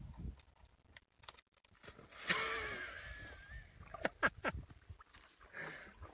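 A dog whining: one high, wavering whine lasting a little over a second, about two seconds in, followed by a few short, sharp sounds. The dog is stuck and cannot turn around.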